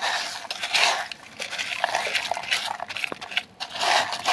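A hand raking through wet gravel in a plastic toy dump truck bed: repeated gritty scrapes with many small clicks of stones knocking together and against the plastic.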